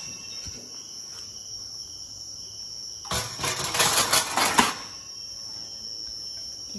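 A burst of rapid clattering clicks about three seconds in, lasting about a second and a half, over a steady high-pitched drone.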